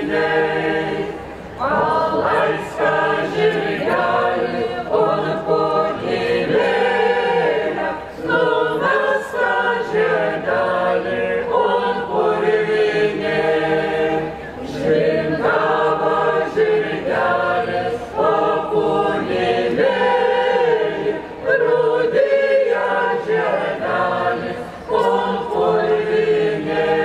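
Folk choir singing a cappella, in phrases of several seconds with short breaks between them.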